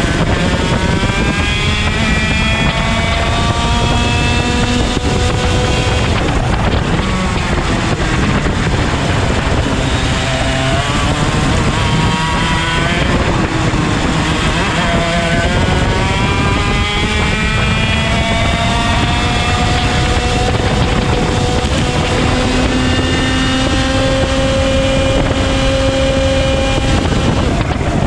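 IAME X30 125cc single-cylinder two-stroke kart engine at racing speed. Its pitch climbs steadily along the straights and falls back when the throttle shuts for the corners, several times over.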